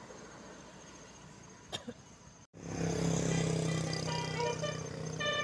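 Faint roadside background with a single click, then after a cut a tour bus's Basuri multi-tone telolet horn starts playing a melody of stepping notes over a steady low hum.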